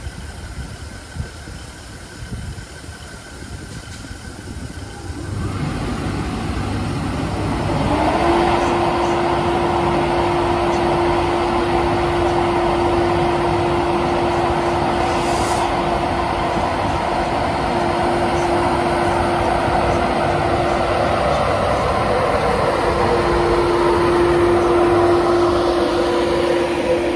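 LNER Class 91 electric locomotive powering up to depart. About five seconds in, a loud steady noise swells; a few seconds later a single tone rises briefly and then holds steady, and near the end the locomotive begins to move off.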